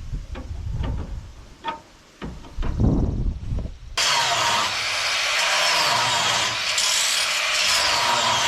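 Scattered knocks and clanks over a low rumble, then, about halfway in, a cutoff wheel starts abruptly and grinds steadily through steel with a whining edge.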